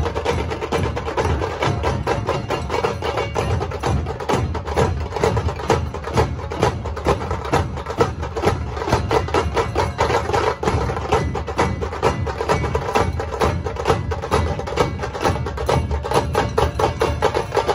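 A dhol-tasha ensemble playing: many large two-headed barrel dhols beaten together in a steady driving rhythm, with sharp, dense stick strokes of tasha drums over the top.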